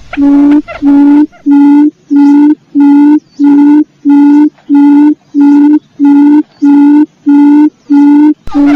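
Wild quail's low hooting call repeated in a steady rhythm, about two notes a second, each note held at one pitch; this is a looped lure call. During the first second, higher wavering notes overlap the hoots, then only the clean hoots remain.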